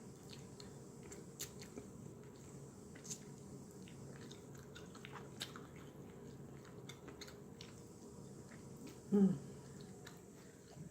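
Close-up chewing of Popeyes fried chicken: soft, scattered wet clicks and smacks of the mouth over a low steady hum. A short, loud voiced sound breaks in about nine seconds in.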